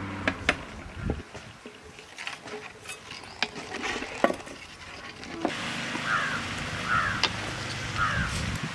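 Wooden spatula stirring a thin curry liquid in an aluminium pot, with sharp knocks and scrapes against the metal. From about halfway a low steady hum comes in, and a bird calls three times near the end.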